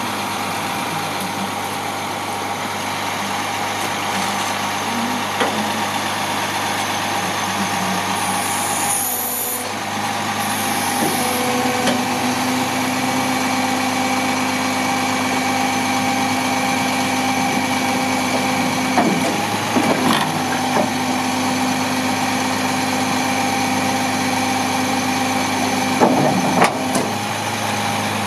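2003 International 4400 bucket truck's diesel engine running steadily. Its hum steps up in pitch about twelve seconds in and drops back near the end, with a few brief clunks.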